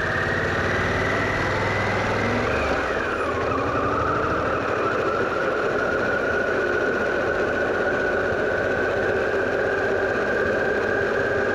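Riding sound from a Harley-Davidson Pan America motorcycle: engine and wind rushing over the mic. A whining tone drops sharply about three seconds in, together with the low engine drone fading, then climbs slowly as the bike keeps moving.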